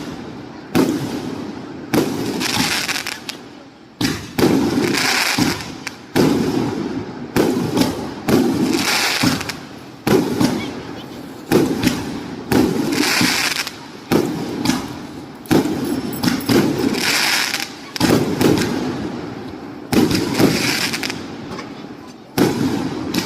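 568-shot firework cake firing in a steady series of volleys, about one every one and a half seconds, each a sudden bang that fades away over about a second.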